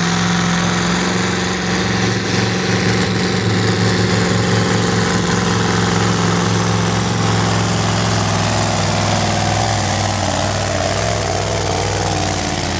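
Magirus Deutz pulling truck's diesel engine running loud and steady under load as it drags a weight-transfer sled.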